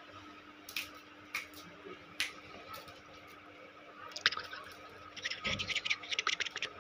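Puppy licking and mouthing another puppy: short wet smacking clicks, a few single ones in the first couple of seconds, then a quick run of them near the end, over a faint steady hum.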